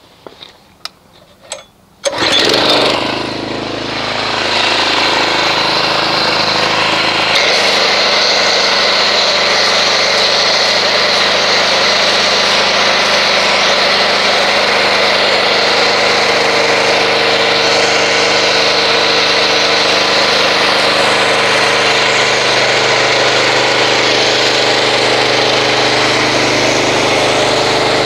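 A few clicks, then a pressure washer starts abruptly about two seconds in and runs steadily while it drives an MTM foam cannon, with the hiss of the foam spraying onto the car.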